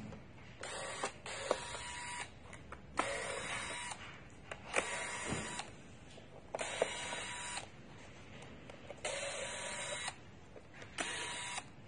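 Corded electric screwdriver whirring in short bursts of about a second, some seven times, as it backs out the screws of a laptop's bottom cover.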